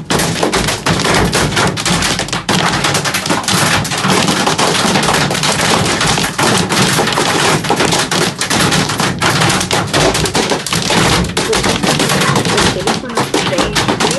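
Large hailstones, described as big as fists, hitting a stopped van's metal body and roof in a dense, unbroken clatter of hits, heard from inside the van.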